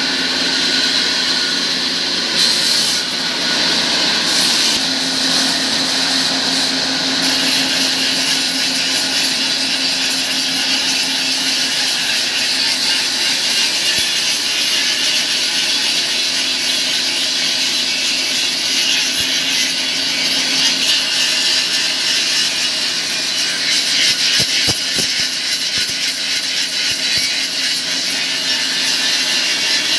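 Sawmill machinery running steadily: a continuous loud, hissing saw noise with a low hum that fades in and out.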